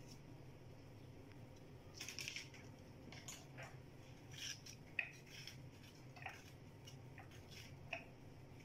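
Faint, scattered clicks and taps of a knife cutting tomatoes held in the hand, with the pieces dropping into a plastic chopper bowl, over a low steady hum.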